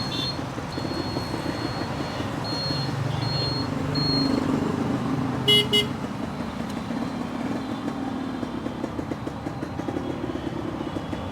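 Restored Yamaha RX100's two-stroke single-cylinder engine idling with a fast, even pulse, swelling briefly about four seconds in, as traffic horns honk briefly, once near the start and again about five and a half seconds in.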